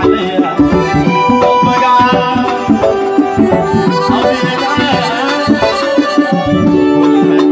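Live instrumental music: an electronic keyboard plays a melody over a quick, steady beat on hand drums.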